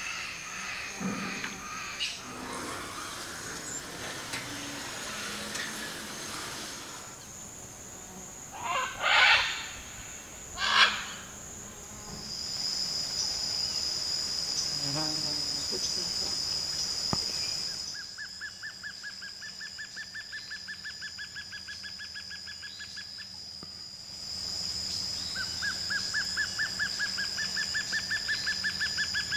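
Tropical forest ambience: insects keep up a steady high-pitched drone, with two short loud sounds about nine and eleven seconds in. Later a rapid pulsing trill comes twice, about six seconds at a time.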